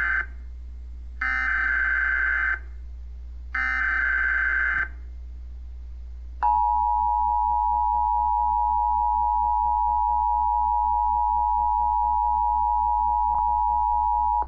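Emergency Alert System header on AM radio: the tail of one data burst, then two more bursts of screechy digital data tones, each about a second long. After a short pause the steady two-tone EAS attention signal sounds for about eight seconds, opening a Required Monthly Test.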